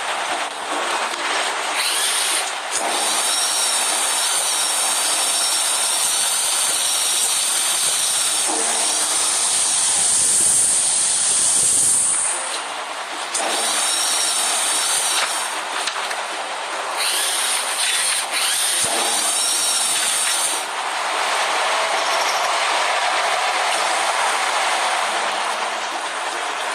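Heavy construction machinery running with a steady mechanical noise, and a high hiss and whine that rise and fall away in spells of a few seconds.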